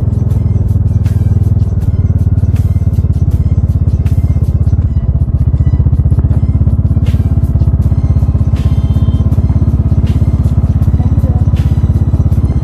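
Bajaj Dominar 400's single-cylinder engine running steadily at low revs with a fast, even pulse.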